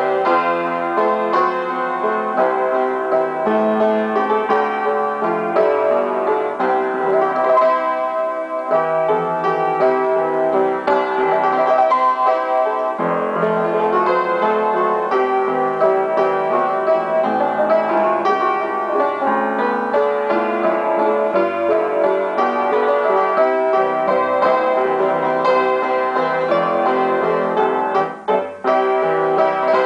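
Acoustic piano played with both hands, a melody over chords in a steady flow of notes, with a brief break near the end.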